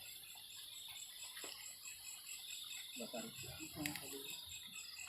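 Night insects, crickets by their sound, chirping steadily in rapid even pulses, with faint murmured voices and a click about halfway through.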